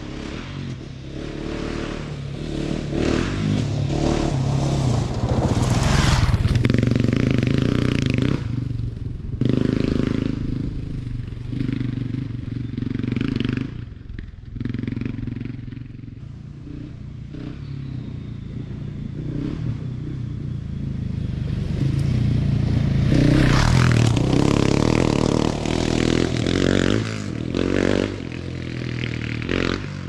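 GasGas ES700 single-cylinder dual-sport motorcycle being ridden on a dirt trail, its engine revving and easing. The engine grows louder and fades away twice, loudest about six seconds in and again around twenty-four seconds in.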